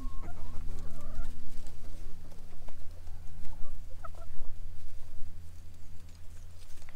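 Hens clucking softly with short calls, over footsteps pattering and rustling on wood-chip mulch. A steady low hum runs underneath.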